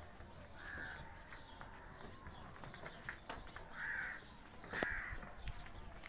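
A crow cawing three times, one hoarse caw about a second in and two close together past the middle, over faint scattered clicks.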